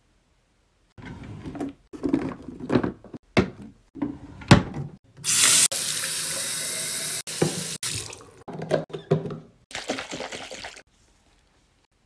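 Water running in a steady stream for about two and a half seconds around the middle, like a tap. Before and after it come clicks and rustles of plastic baby items being handled, the sharpest click a little before the water starts.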